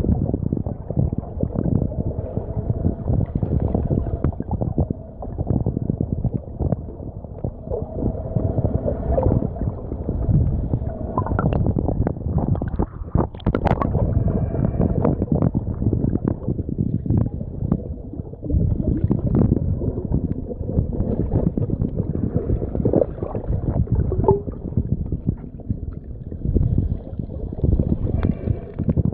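Muffled underwater churning and gurgling of water and bubbles around a submerged camera as snorkelers swim and kick with fins, with a few sharper clicks around the middle.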